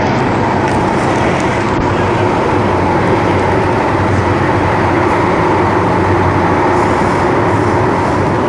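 MTR M-Train electric metro train running through a tunnel, heard from inside the car: a steady loud rumble of wheels and motors with a steady whine held through it.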